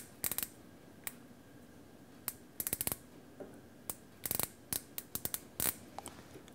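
Micrometer ratchet thimble clicking as the spindle is closed on the workpiece to take a measurement: quick runs of small sharp clicks, with single clicks between.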